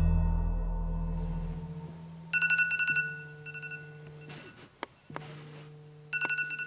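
Smartphone alarm going off in bursts of rapid, evenly pulsed electronic beeps, two bursts and then a third near the end. It opens on a deep boom that fades out over the first two seconds, and a low steady hum runs underneath.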